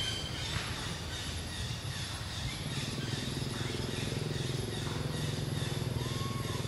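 Low, steady engine hum of an unseen motor vehicle, growing a little louder about halfway through.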